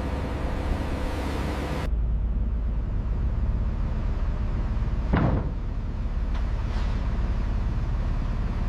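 Steady running of the small motors of RC construction machines, with a single knock about five seconds in and two faint clicks after it.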